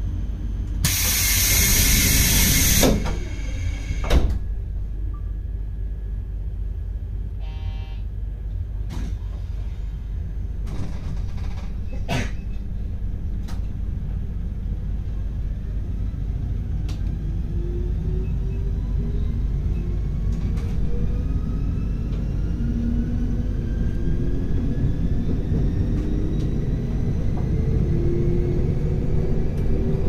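Train running with a steady low rumble. About a second in there is a loud hiss lasting about two seconds, and a few sharp clicks follow. From about halfway on, a whine made of several tones rises slowly in pitch as the train gathers speed.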